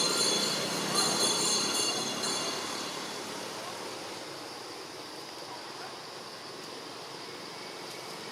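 A vehicle passing on the road, its noise fading away over the first few seconds, with a high steady squeal that stops about two and a half seconds in.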